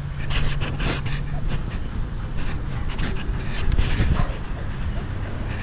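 German Shepherd / Belgian Malinois dogs panting close by in short, irregular breathy puffs, over a low steady hum that fades out about a second and a half in.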